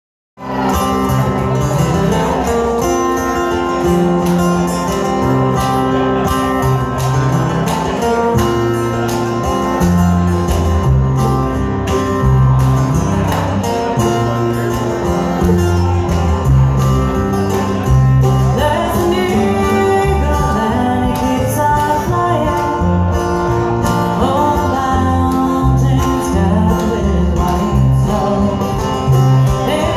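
Live bluegrass band playing: banjo, fiddle, acoustic guitar and upright bass. The music cuts in abruptly just after the start.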